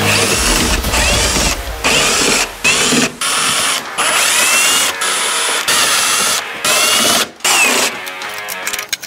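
Power screwdriver running in about eight short runs with brief pauses between, its motor whine rising during each run as it drives screws out.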